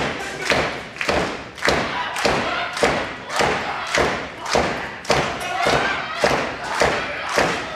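Rhythmic slapping on a wrestling ring's apron mat, an even beat of about two slaps a second, echoing in the hall: the seconds' beat to rally a downed wrestler.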